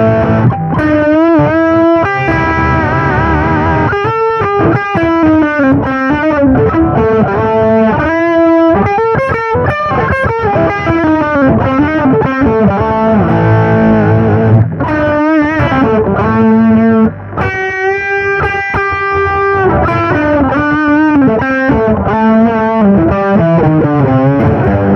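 Electric guitar played through a Marshall GV-2 Guv'nor Plus overdrive pedal at its suggested 'Screaming Solo' setting, gain at maximum into a clean amp: distorted lead lines with sustained, bent notes and vibrato. The reviewer finds this tone a little too heavy in the mids and lows.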